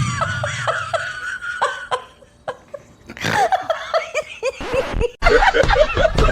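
Laughter in short repeated bursts, with a high held squeal at the start and a brief lull about two seconds in. Near the end it cuts abruptly to a different, louder sound.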